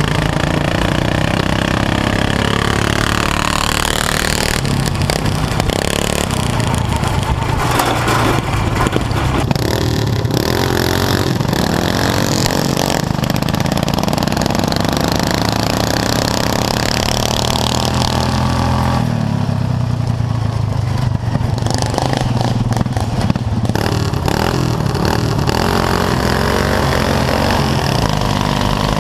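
Racing lawn mower engines running loud and revving, the pitch rising and falling again and again.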